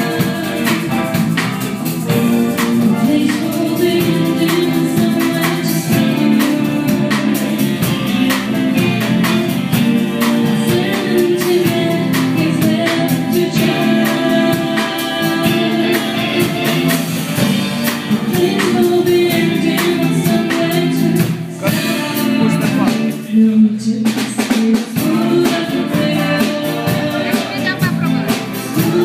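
Live pop band performing: sung vocals over keyboard, electric bass guitar and drum kit, with a brief drop-out about six seconds before the end.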